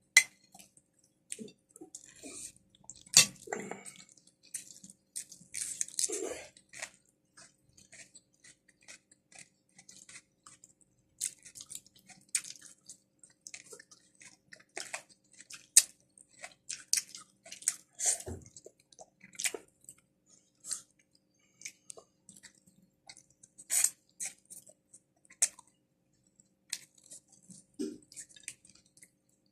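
A person chewing and eating creamy shrimp and crab, with irregular wet smacks and small clicks throughout.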